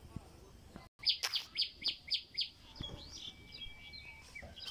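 Bird calls starting about a second in: a quick run of about six sharp, high chirps, then a few varied, lower notes, with a thin steady whistle-like tone underneath.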